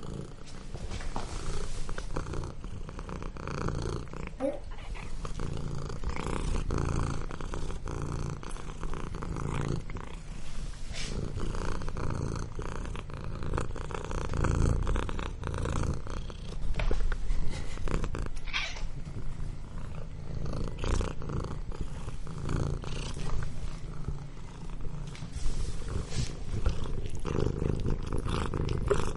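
Domestic cat purring continuously, a low rhythmic rumble that swells and fades with each breath in and out.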